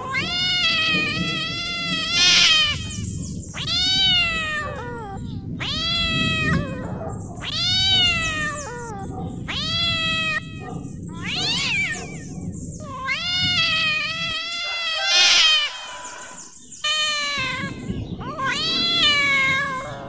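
A cat meowing again and again: about ten long, drawn-out meows, one every second or two, each rising and then falling in pitch. Under them runs a low background rumble that drops out for a couple of seconds a little past the middle.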